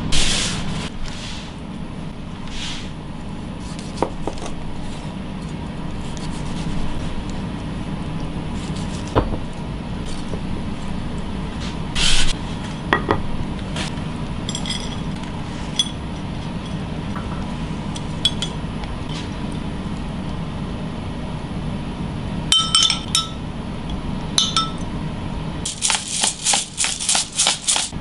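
Tableware being handled on a cutting board: scattered knocks and clinks of a ceramic plate and utensils, some ringing briefly, over a steady low hum, with a quick run of crisp strokes near the end.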